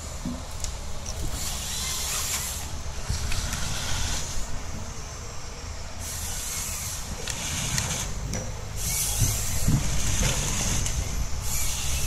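Rottne H21D forestry harvester at work: its John Deere 9-litre diesel engine runs with a steady low rumble, and stretches of high hissing come and go over it.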